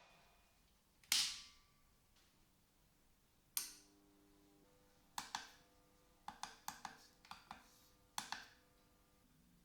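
Sharp clicks and taps of hard, metal objects being handled and set down, about a dozen in all. The first is a single loud click about a second in, and a second click near the middle rings briefly. After that the clicks come in quick pairs and short runs.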